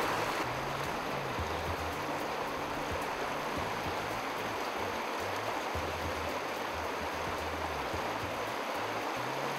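Small moorland stream running steadily over rocks, with a low rumble that comes and goes beneath it.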